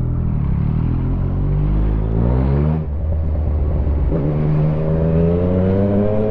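Yamaha MT-09 inline three-cylinder motorcycle engine accelerating. Its pitch rises for almost three seconds, dips briefly at a gear change, then rises again in the next gear.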